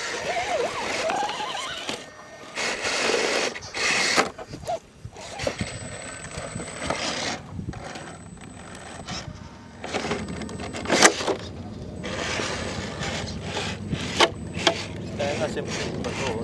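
Radio-controlled scale rock crawlers working over boulders: electric motor and gear drive whining as the throttle changes, with a few sharp knocks of tyres and chassis against the rock.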